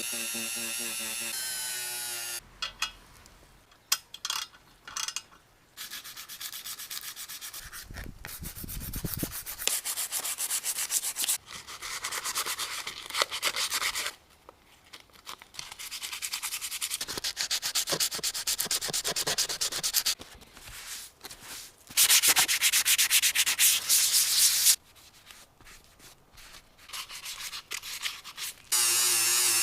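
Sanding on motorcycle parts: several bursts of rapid rubbing strokes, a few seconds each, with short pauses between; the loudest burst comes about three-quarters of the way through.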